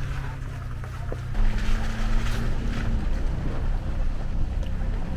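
Off-road vehicle's engine running at low speed as a steady low drone. It changes pitch and grows louder about a second and a half in, with a rush of wind and tyre noise over it.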